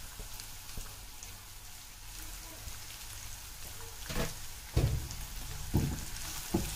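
Sliced onions and garlic sizzling in oil in a pan, a steady fine crackle. In the second half a spatula knocks and scrapes against the pan four or five times as they are stirred.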